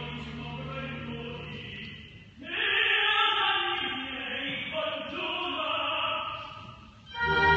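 Live classical singing: voices holding long sustained phrases, breaking off briefly about two seconds in, with a loud full chord coming in near the end.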